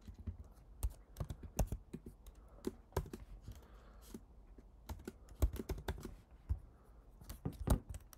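Typing on a computer keyboard: irregular single keystrokes and short runs of key clicks, some struck harder than others.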